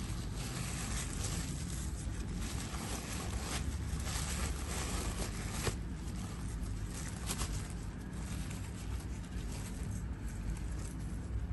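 Tissue paper rustling and crinkling as it is unfolded and pulled back by hand, over a steady low background rumble. The rustling is busiest for the first eight seconds or so, then thins out.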